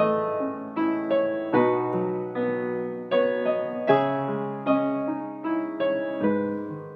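Background piano music: a gentle melody of struck notes, a few a second, each ringing and fading away.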